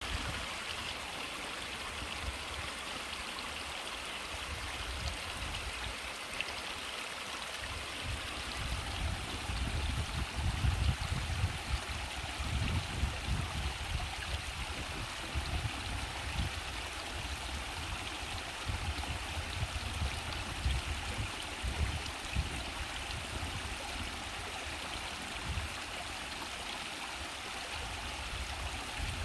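Mountain valley stream: water rushing and gurgling over rocks in a steady, continuous flow. Irregular low rumbles come and go through the middle.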